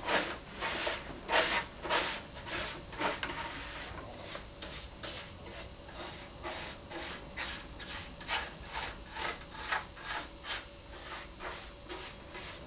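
A wet bristle brush scrubbing the plastic casing of a CRT computer monitor in a steady run of short back-and-forth strokes, roughly two a second.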